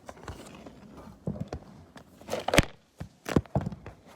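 Handling noises: a run of irregular clicks and knocks as small objects are picked up and set down, the loudest knock about two and a half seconds in.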